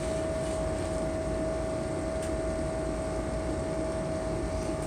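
Steady mechanical drone of machinery running in the towboat galley, with one constant humming tone over a rumbling noise and a single sharp knock at the very end.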